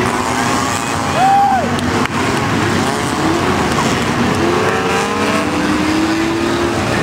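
Pack of enduro stock cars running at speed on an oval track, several engines rising and falling in pitch as they pass. A brief tire squeal comes about a second in.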